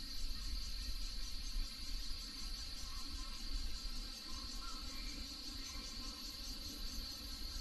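Steady chorus of insects such as crickets: a continuous high-pitched trill with a fast, even pulse, over a faint low rumble.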